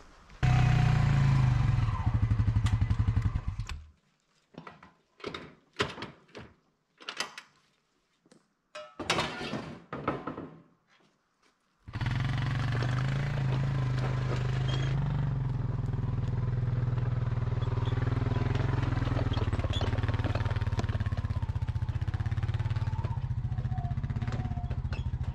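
ATV engine running as it drives with a small trailer in tow, a steady low drone. The engine sound breaks off about four seconds in, leaving scattered short sounds, and comes back about twelve seconds in, running steadily to the end.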